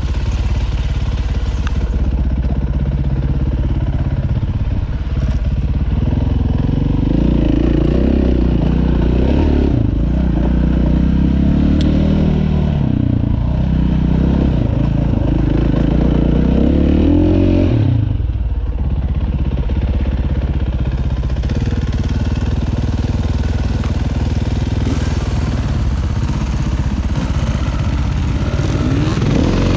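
Dirt bike engine running hard on a trail ride, its pitch rising and falling with the throttle as the rider works through the terrain. The engine note drops off briefly about two-thirds of the way through, then picks back up.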